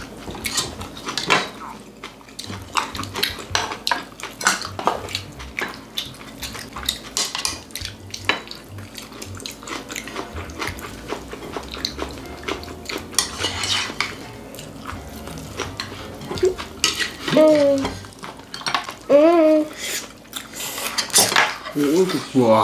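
Chopsticks and spoons clicking and scraping against ceramic plates and bowls while people eat at a table, in irregular short clinks. Two brief voiced sounds rise and fall about three-quarters of the way through.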